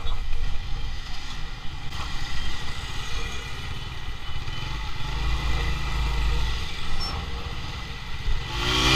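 Motorcycle engine running at low speed, with wind rumbling on the microphone. About a second from the end, the traffic gets louder and an engine note rises in pitch.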